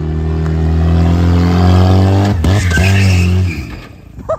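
Honda Civic's four-cylinder engine revving hard and holding high revs as the car slides on concrete, with tire squeal. About two and a half seconds in, the engine note stutters and wavers as the wheels hop, and about a second later it drops off abruptly as the driver lifts off.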